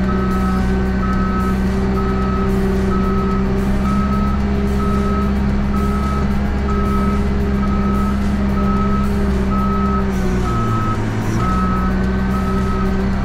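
JCB 3CX backhoe loader's diesel engine running steadily under load while its reversing alarm beeps about twice a second as the machine backs along, dragging gravel with the front bucket. The engine note dips briefly near the end.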